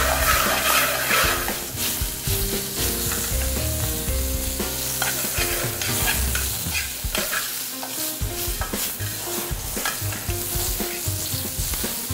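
Shrimp sautéing in a small aluminium frying pan on a gas burner: a steady sizzle, with a metal spoon scraping and clinking against the pan as they are stirred.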